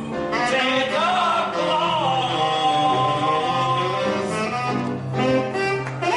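Music: a band playing an instrumental passage of a song, a wavering melody line over held notes and a steady bass note.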